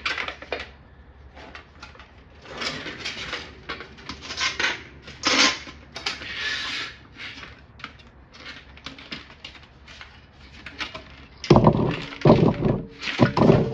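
Hand-handling noises: wiring being fished through a sign's metal letters. Scattered rustling and scraping, then a cluster of heavier clunks and knocks near the end.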